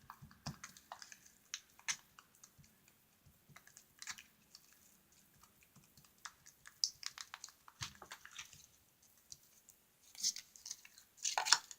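Sticky homemade glue slime being kneaded and squished by hand, making irregular wet clicks and crackles, with louder bunches of squelching near the end. The clicking is the slime still tacky as fresh contact lens solution is worked in to firm it up.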